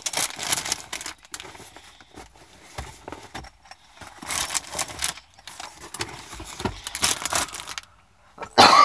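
Scattered rustling and handling noises, then near the end a loud cough into a sleeve.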